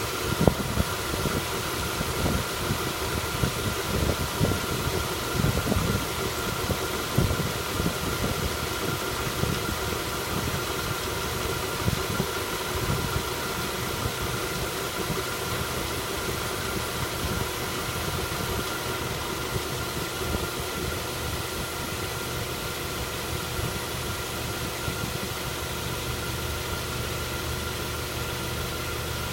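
Mazda 3 with automatic transmission running, with irregular knocking through roughly the first dozen seconds before it settles into a steadier run over a faint steady whine. The knock is a fault in the automatic transmission that is heard when coasting and goes away under throttle.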